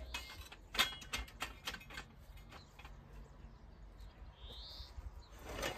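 Wooden knocks and clunks as a wooden trestle is carried and set down against a stone wall, the sharpest about a second in and another near the end. A bird chirps once in between.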